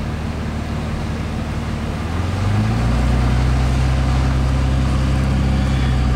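Truck engine running while driving through salt floodwater, with a steady wash of tyre and water noise; about two seconds in the engine note rises and gets louder as it picks up speed.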